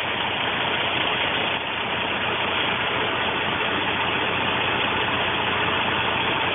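Steady engine-like running noise, as of a vehicle idling, with an even hiss that does not change.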